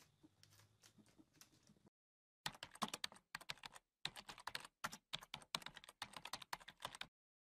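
Typing on a laptop keyboard: soft key clicks at first, then after a brief pause several quick runs of sharper key clicks with short gaps between them, stopping shortly before the end.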